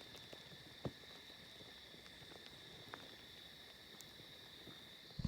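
Faint, steady chirring of night insects, heard as an even high band of sound, with a few soft clicks: one about a second in, and another near the end.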